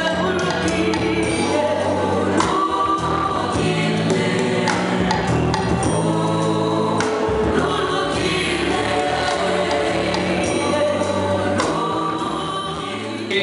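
Gospel hymn sung by a woman lead singer through a microphone and PA, with a choir joining in over steady low accompaniment.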